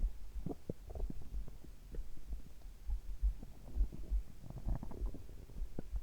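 A human heartbeat heard close up as a steady run of low, dull thumps, with stomach gurgles and rumbles squeaking over it, the busiest about half a second in and again near the end.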